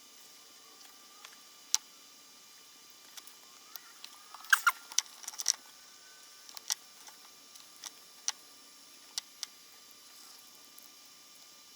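Scattered light clicks and taps of hands and tools handling thin thermal pad strips on an aluminium heatsink, with a quick cluster of sharper clicks about four and a half seconds in.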